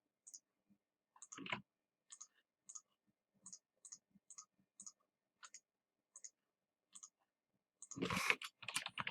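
Computer mouse clicking, about a dozen light single clicks at irregular intervals, with a louder brief noisy sound near the end.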